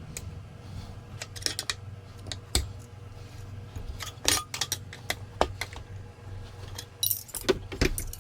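Irregular metal clinks and clanks of steel tire irons working against a motorcycle wheel rim during a hand tire change, over a steady low hum.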